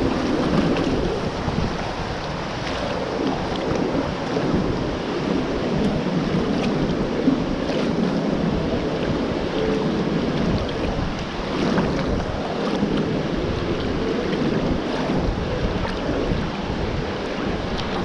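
River water sloshing and rushing right at the microphone as the camera sits at the surface of a shallow pool, with scattered small splashes.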